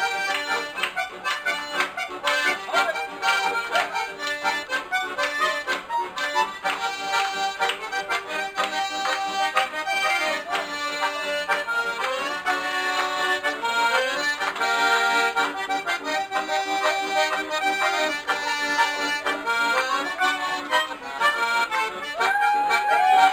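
Live folk music from accordions and an acoustic guitar: the accordions hold sustained chords and melody over a steady strummed rhythm.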